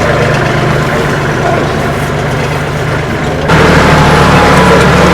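Tractor engine running steadily; about three and a half seconds in the sound jumps abruptly louder, with a different, deeper engine note.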